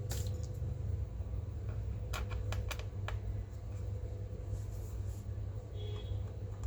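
Light clicks and taps of a laptop being handled, one at the start and a quick cluster of about five between two and three seconds in, over a steady low hum.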